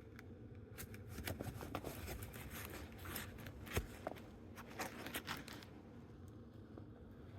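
Handling noise: a run of rustles and light clicks and taps as something is handled by hand, with a sharper knock about four seconds in, then settling back to quiet room tone near the end.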